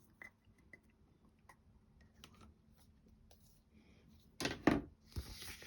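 Handling noise from small wooden clock-kit parts: faint scattered clicks and taps, then a louder knock with a short rustle about four and a half seconds in.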